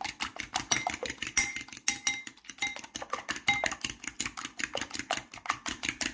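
Metal fork beating two raw eggs in a ceramic bowl: rapid, even clinks of the tines against the bowl, with a brief ring from the bowl on some strokes.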